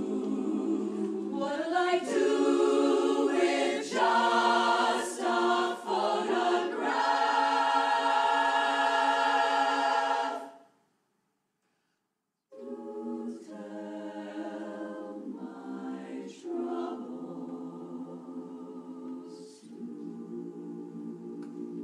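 Women's barbershop chorus singing a cappella, building to a loud held chord that cuts off about ten seconds in. After about two seconds of silence the singing resumes more softly.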